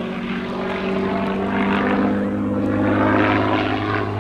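Hawker Fury biplane's supercharged Rolls-Royce Kestrel V-12 engine and propeller running in flight during aerobatics, a steady drone whose pitch shifts slightly as the aircraft manoeuvres.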